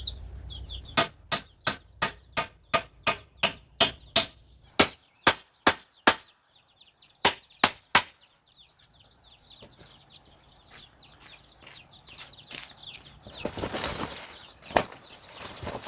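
Rapid chopping blows on wood, about three a second for some seven seconds, then stopping. Afterwards birds or chickens chirp, with a brief rustle and a few more chops near the end.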